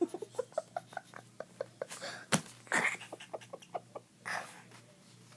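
Giggling: a rapid string of short laughs for about two seconds, then a click and a couple of breathy puffs.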